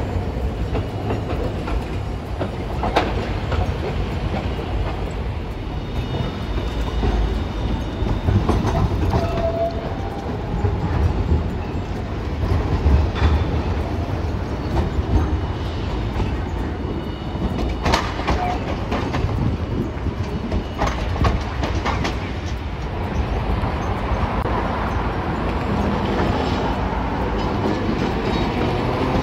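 Hiroshima streetcars running along street track amid road traffic, with a steady rumble and sharp wheel clacks over rail joints and crossings. Near the end a tram motor's whine rises in pitch as the car gathers speed.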